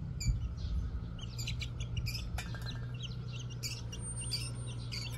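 Young chickens peeping in quick, short, high cheeps. About two and a half seconds in there is a single clink with a brief ring from the metal feeding tray.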